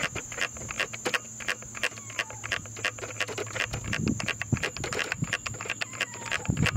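Sony Alpha 57 camera's control dial being turned step by step to work the digital zoom, giving a rapid run of sharp clicks, several a second, over a steady high whine.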